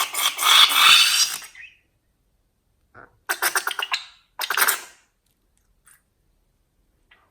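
Slime squelching and crackling as it is squeezed, with rapid popping of trapped air. There are three bursts: a long one that stops about a second and a half in, then two short ones a few seconds later.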